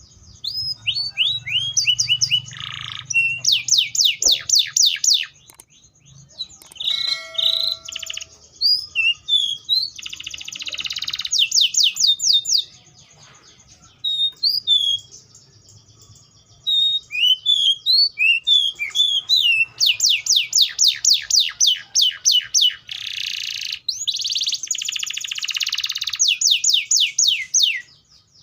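Canary (Serinus canaria) singing: phrases of fast trills of rapidly repeated high notes mixed with short falling whistled notes, broken by brief pauses between phrases.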